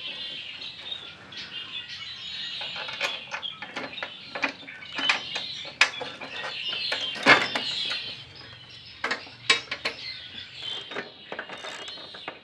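Bolts, washers and a steel bracket clicking and clinking in irregular knocks as the bracket is fitted to a radiator by hand, with birds chirping faintly in the background.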